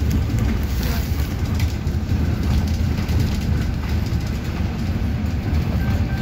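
Inside a SOR NB 18 articulated city bus under way: a steady low engine and road rumble, with a few light rattles.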